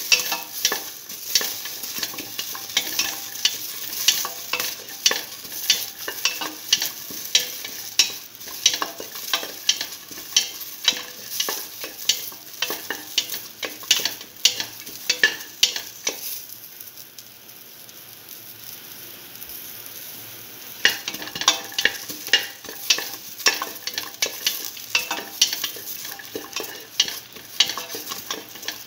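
Onion, tomato and green chili sizzling in hot oil in a steel pan while being stirred, the utensil scraping and clinking rapidly against the metal. The stirring pauses for a few seconds past the middle, leaving only the sizzle, then resumes.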